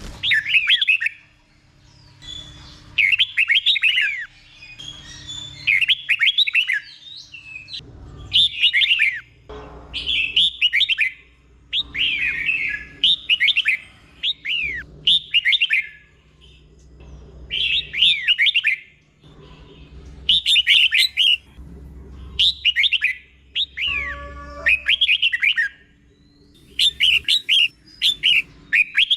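Red-whiskered bulbul singing its short, quick whistled phrases over and over, one phrase every second or two with brief pauses between.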